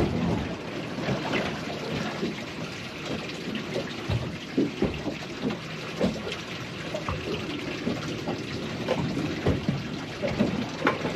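Sea water sloshing and slapping against the side of a small boat in irregular little splashes.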